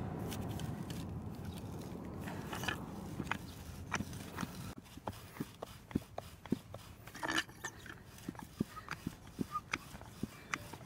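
Hand auger bit being twisted into a dry log, its cutter shaving out wood: a steady grinding scrape at first, then from about halfway a run of sharp, irregular crunching clicks as the wood fibres give way.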